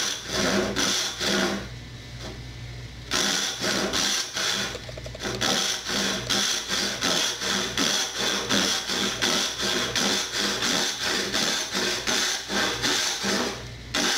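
Hand backsaw cutting wood in a steady rhythm of push strokes, about two a second, pausing for about a second and a half near the start before carrying on.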